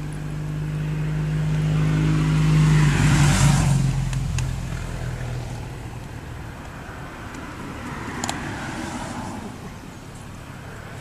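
A motor vehicle passing by, its engine hum and tyre hiss swelling to a peak about three and a half seconds in, dropping slightly in pitch, then fading away. There is a sharp click near the end.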